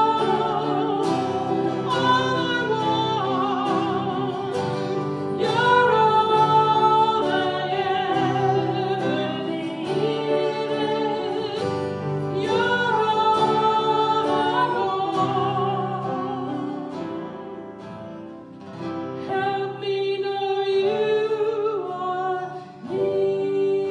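Music: a worship song sung by a solo voice with long, wavering held notes, accompanied by acoustic guitar.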